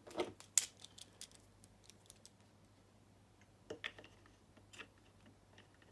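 Light clicks and taps of the plastic emergency-stop-button box and its parts being handled: a quick cluster in the first second, then a few more about four seconds in.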